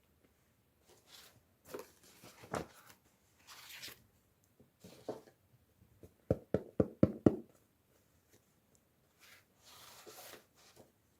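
Toy packaging being handled and opened: rustling and tearing, with a quick run of about six sharp clicks or taps about six seconds in.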